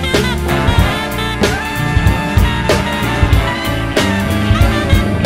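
Background music: upbeat jazzy swing tune with drums and brass.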